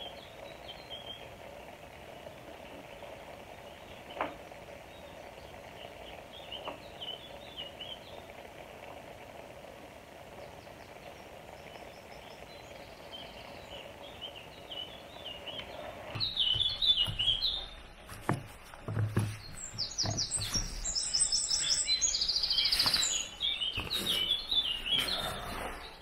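Small songbirds chirping and singing in short repeated phrases over a steady background hiss. About two-thirds of the way in the chirping gets louder and busier, with a few low thumps mixed in.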